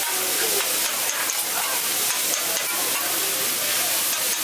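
Fried rice sizzling on a hot hibachi griddle as a chef stirs and chops it with a metal spatula: a steady hiss with short scrapes and taps of the spatula on the steel plate.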